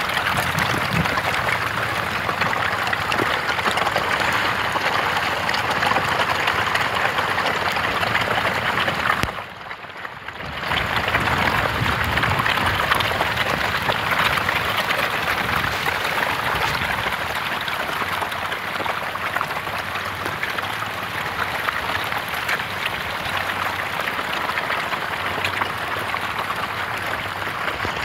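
Continuous dense splashing and slapping of a huge crowd of catfish thrashing at the water surface in a feeding frenzy. It briefly drops away for about a second roughly a third of the way through.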